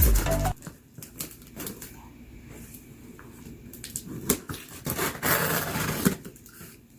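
Box and packaging being handled by hand: scattered clicks and taps with rustling, and a longer, louder rustling scrape about five to six seconds in.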